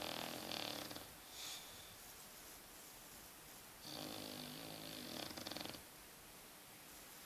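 Snoring in slow breaths: a long droning snore ends about a second in, a short breath follows, and a second long snore comes about four seconds in and lasts nearly two seconds.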